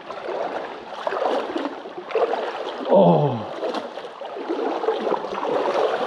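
Legs wading through shallow creek water, an uneven sloshing and splashing with each stride. About three seconds in, a brief sound falling steeply in pitch stands out as the loudest moment.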